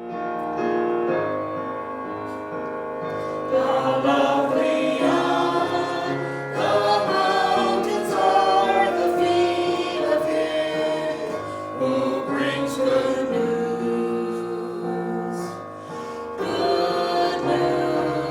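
Church worship team performing a gospel worship song: held chords from the start, with several voices singing together from about three and a half seconds in.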